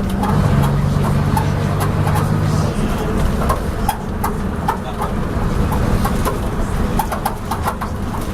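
Leyland Atlantean double-decker bus with ECW body under way: the diesel engine drones steadily, its pitch shifting during the first few seconds, under a constant loud clanking and rattling from the body.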